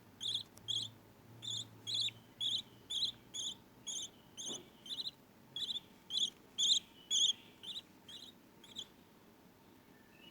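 Budgie chicks chirping: a regular series of short, high-pitched cheeps, about two a second, that stops near the end.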